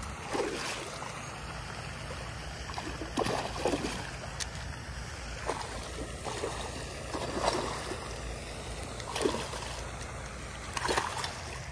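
A hooked fish splashing and thrashing at the water's surface as it is reeled in, a splash every second or two, over a steady rumble of wind on the microphone.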